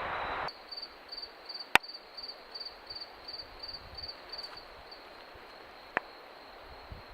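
A cricket chirping in an even rhythm, about three short high chirps a second, stopping about four and a half seconds in. A steady hiss cuts off suddenly half a second in, and a sharp click, the loudest sound, comes about two seconds in, with a softer one near six seconds.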